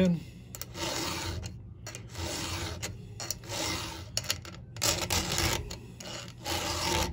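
Round chainsaw file scraping across a saw chain's cutter tooth in a series of separate hand strokes, about one a second, digging material out of the gullet behind the cutter.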